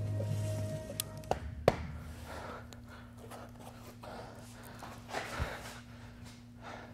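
A film soundtrack: a few sharp knocks about a second and a half in, then a man's heavy breathing, repeated breaths over a faint steady hum.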